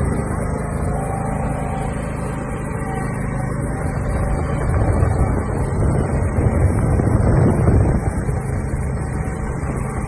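Riding lawn mower engine running steadily, growing louder for a few seconds around the middle before settling back.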